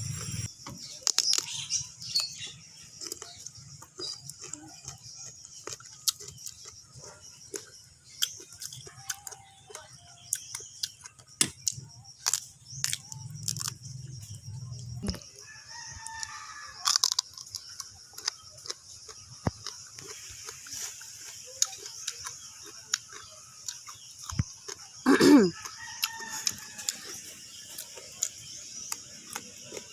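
A rooster crowing, with chicken clucking, the loudest crow falling in pitch near the end, over a run of short sharp clicks from eating.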